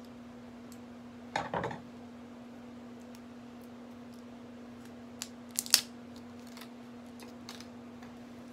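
Scissors snipping and peeling the plastic shrink-wrap seal off a hot sauce bottle's cap: a short crinkling burst about a second and a half in, then a few sharp clicks a little past five seconds. A faint steady hum runs underneath.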